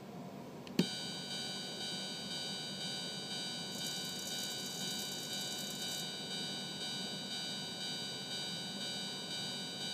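A click about a second in, then the electronic warning tone of an N-gauge model level-crossing kit sounding steadily as a cluster of high tones. A short whir from about four to six seconds in, as the servo moves the barrier arms.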